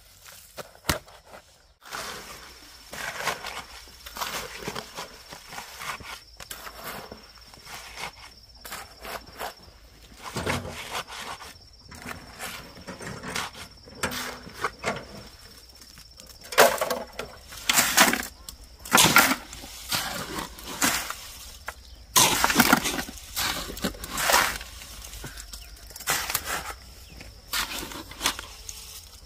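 Stones being handled: irregular knocks and scrapes of rock on rock, coming faster and louder in the second half.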